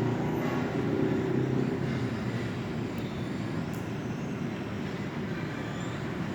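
A steady low mechanical rumble, like a running motor, strongest at the start and easing off slightly after about two seconds.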